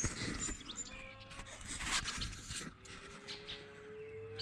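Faint, drawn-out call of a distant farm animal, slowly rising in pitch, after a shorter call about a second in, with scattered clicks and rustling of handling close by.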